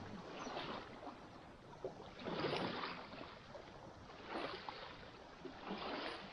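Small waves lapping and washing, faint, swelling four times, with the loudest swell about halfway through.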